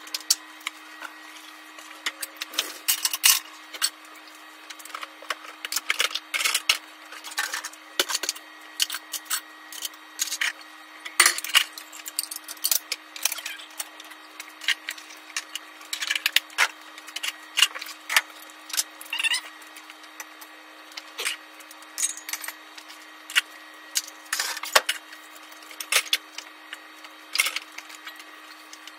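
Clean plates and dishes clinking and knocking irregularly as they are put away on the kitchen cupboard shelves, over a steady low hum.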